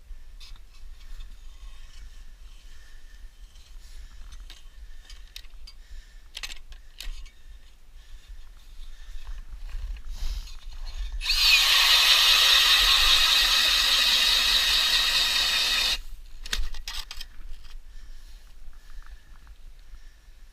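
Ridgid Gen5X 18-volt brushless drill turning a 7-inch Strikemaster hand auger through a Clam drill plate to bore a hole in the ice: a steady motor whine for about five seconds in the middle, rising briefly in pitch as it spins up and cutting off sharply. Scattered clicks and knocks come before and after it, over low wind rumble on the microphone.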